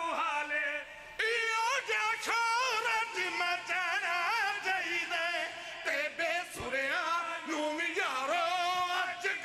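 Men singing a Shia devotional chant: a lead reciter with two men joining in. The drawn-out lines waver and glide in pitch, with a brief break about a second in.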